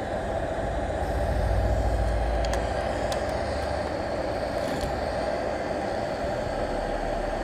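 Quick 861DW hot air rework station blowing steadily onto the board as it heats the flux and solder to reflow a chip, a constant rush of air. A low rumble swells about a second in and eases off a couple of seconds later.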